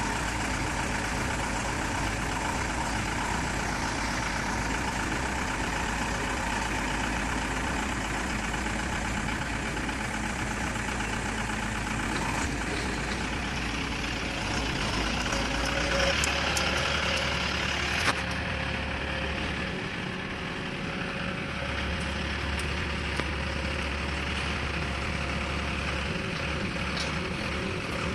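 ST 200 pneumatic crawler drilling rig running steadily with a dense mechanical noise. The sound shifts about two-thirds of the way through, and there is a single sharp knock shortly after.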